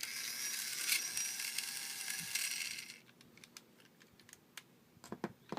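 Battery-powered Tomy Trackmaster Thomas toy engine's small electric motor and gears whirring for about three seconds, then switched off, followed by a few light handling clicks.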